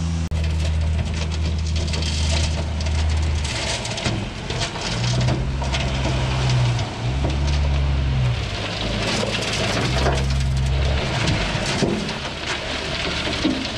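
Heavy diesel engine running, its pitch stepping up and down several times as it works, over a steady crunching and rattling of loose base rock being spread.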